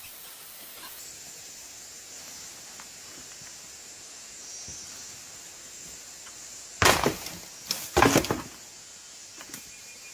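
Brush and branches crackling and snapping in two short loud bursts, about seven and eight seconds in, as someone pushes through forest undergrowth, over a steady high hiss.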